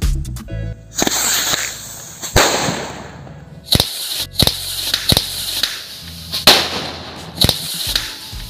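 Diwali firework rocket igniting with a hiss about a second in and rushing upward, followed by a series of sharp cracks about a second apart.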